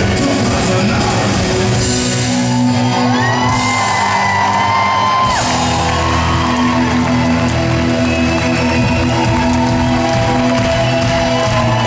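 Live rock band playing on stage, loud and continuous, with a held sung melody and shouts from the crowd.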